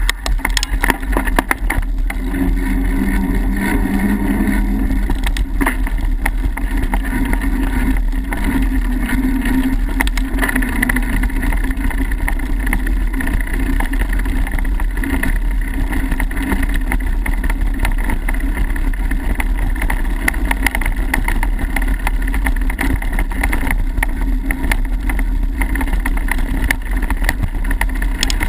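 Mountain bike ridden fast along a dirt singletrack trail: a steady rumble of wind on the microphone mixed with the rattle and crunch of the tyres and bike over the ground, with a few sharp knocks about a second in as the bike crosses the boards at the road edge.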